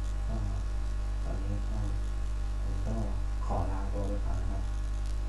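Steady electrical mains hum with a buzz, picked up by the recording, with a few brief, faint, indistinct voice sounds over it.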